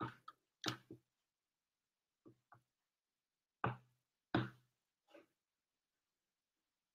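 Soft, irregular knocks and taps of objects being handled and set down near the microphone, about nine in all over five seconds, a few with a short low ring.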